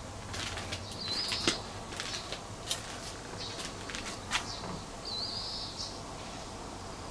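Outdoor ambience with two short, high bird calls, one about a second in and one about five seconds in, among scattered sharp clicks and taps over a low steady hum.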